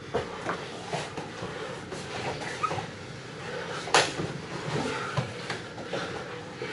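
Jiu-jitsu sparring: bodies and bare feet thumping and scuffling on foam mats as several pairs grapple in gis, in irregular soft knocks. There is one sharp, louder knock about four seconds in.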